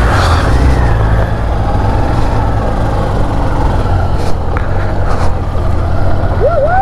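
Motorcycle engine running steadily under way, with road and wind noise, on a rough mountain track. A drawn-out pitched tone slides up and holds at the very end.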